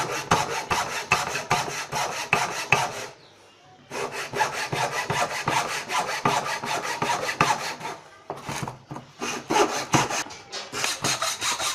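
Hand file scraping across a steel knife blade in quick back-and-forth strokes, about four or five a second, with a short pause about three seconds in.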